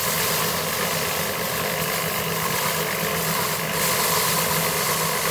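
Drum paddy thresher running steadily as rice sheaves are fed against its spinning drum: a steady low hum under a dense, even rushing noise.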